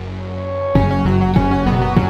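Background music: a sustained low electronic drone gives way, under a second in, to a fuller electronic track with a steady beat.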